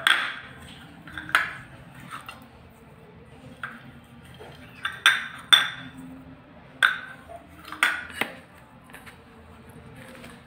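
Stainless steel bowl and small steel container clinking as a hand scoops and mixes ground peanuts and jaggery. About ten sharp, irregular metal clinks, each ringing briefly.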